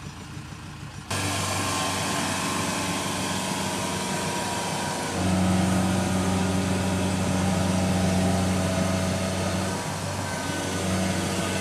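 Heavy diesel machinery engine running steadily, cutting in abruptly about a second in and then working harder and louder about five seconds in, under load while a mired combine harvester is being pulled out of mud.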